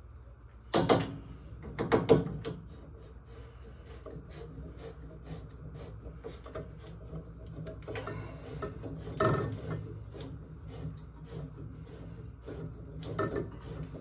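Thermal expansion tank being handled and screwed onto a threaded fitting on a copper water pipe: a few sharp knocks about one and two seconds in, another near nine seconds and one near the end, with soft rubbing and clicking between them.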